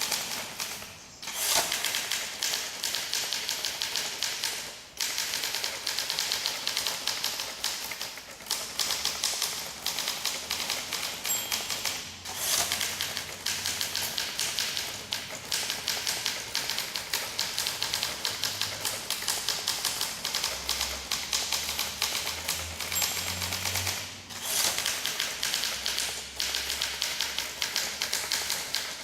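1958 Olympia SM2 manual portable typewriter being typed on: a rapid, steady run of key strikes, broken by a few short pauses.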